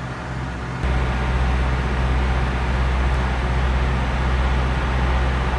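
Steady low drone of an engine running, which steps up abruptly in level about a second in and then holds even.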